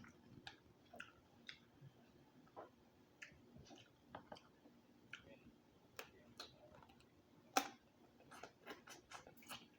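Quiet close-mic eating sounds: irregular soft wet clicks and smacks of a person chewing seafood-boil food, with one sharper click past the middle.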